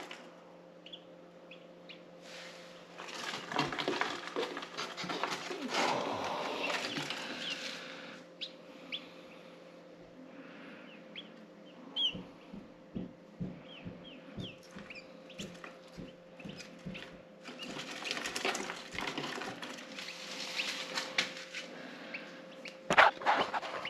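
Pigeons flapping their wings in the coop, one bout of rustling wingbeats a few seconds in and another near the end. Between the bouts come short high chirps and light taps.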